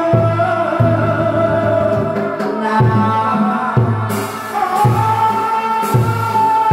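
Tuồng theatre music: a long held, slowly gliding melody line over a low drum beating roughly once a second.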